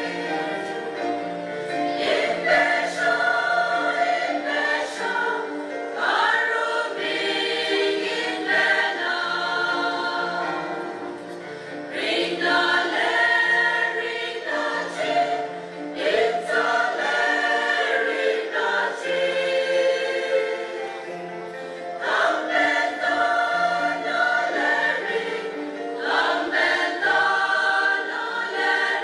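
Mixed choir of women's and men's voices singing a hymn in full chords, in phrases a few seconds long that swell and ease off.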